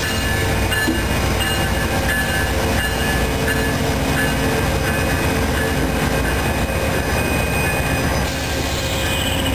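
A train rolling steadily past on the rails, with wheel-and-rail noise and thin, steady squealing tones from the wheels.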